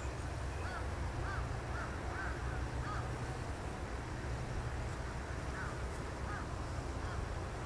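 Crows cawing: a run of short caws in the first three seconds, then a few more near the end, over a steady low rumble.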